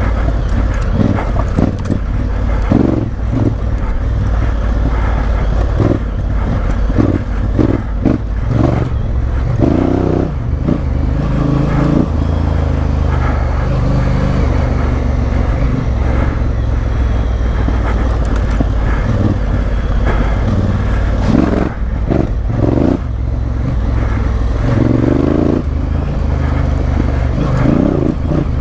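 Honda Africa Twin CRF1000L's parallel-twin engine running under way off-road, the revs rising and falling with the throttle, with occasional knocks.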